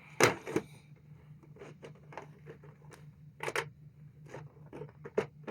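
Plastic Duplo bricks being handled and pressed together: scattered small clicks and scrapes, a louder double click about three and a half seconds in.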